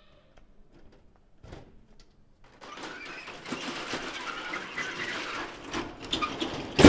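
A dense, busy chattering and clattering noise builds up from about two and a half seconds in. Near the end a large bell is struck once, loudly, and starts ringing on with long, steady tones.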